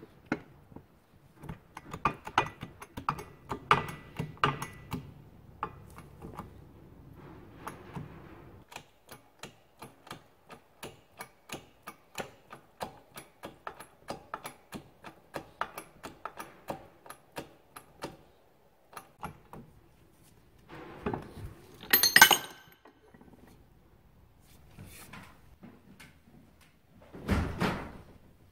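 Metal parts being worked on a workshop press while a bushing is pressed into a motorcycle rear shock's mounting eye: some clattering, then a long run of evenly spaced clicks, about two to three a second. Past two-thirds through comes one loud clank, and near the end a heavy thump.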